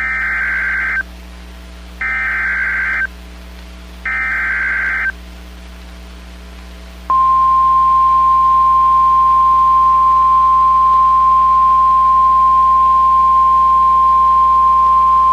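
NOAA Weather Radio Emergency Alert System signal: three one-second blasts of SAME header data tones, a second apart, then a pause and, about seven seconds in, the steady single-pitch 1050 Hz warning alarm tone. It signals that a new warning is being issued, here a severe thunderstorm warning.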